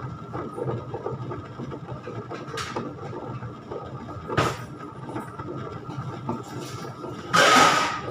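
Ultra mini wet grinder running steadily, its stone grinding soaked rice and urad dal with a low rumble and a faint steady whine. Short splashy bursts come as the soaked grain and water are tipped in, the loudest lasting under a second near the end.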